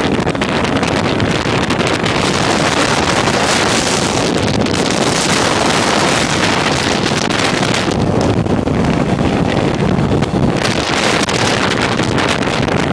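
Heavy wind buffeting the microphone of a motorcycle riding at road speed, with the motorcycle's engine running underneath.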